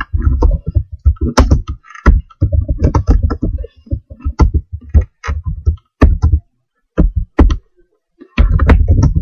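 Typing on a computer keyboard: quick runs of keystrokes with short pauses between them, a pause of under a second, then a last fast run near the end.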